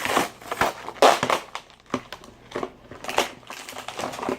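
Plastic and cardboard toy packaging crunching and crackling as it is pulled and broken open by hand, in irregular bursts, loudest about a second in.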